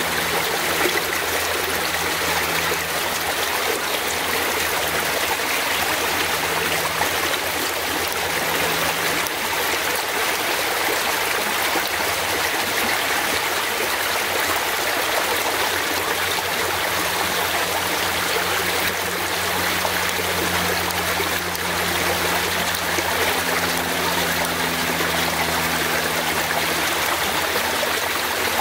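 Fast-flowing forest stream running steadily, a constant even wash of water.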